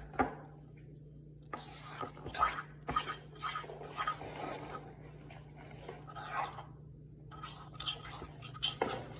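A utensil stirring and scraping thick, stiff dough in a ceramic bowl: irregular scrapes with a few sharp knocks against the bowl, in spells with short pauses between.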